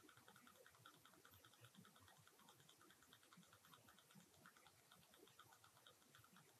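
Near silence with faint, quick, irregular ticking, about five or six ticks a second.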